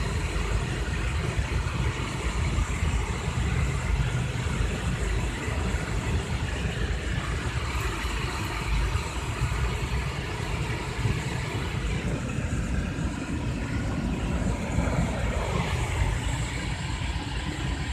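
D&S IQ Soft Touch 2.0 automatic car wash running over the car during its foam stage, heard from inside the cabin: a steady rush of spray over a low rumble.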